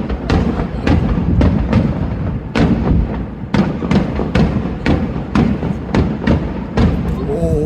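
Aerial fireworks bursting in a rapid barrage: sharp bangs about two to three a second over a continuous deep booming rumble.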